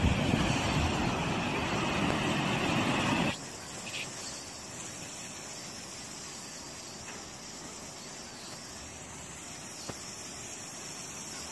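Floodwater rushing in a fast torrent, a steady roaring rush. It is loud for about the first three seconds, then drops suddenly to a quieter, even rush.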